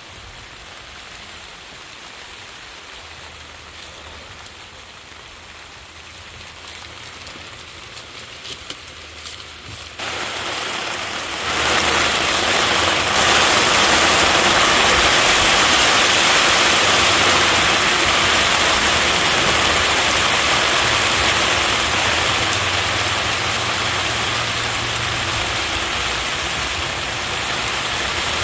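Rain falling in a steady hiss, abruptly much louder about ten seconds in, turning into a heavy downpour.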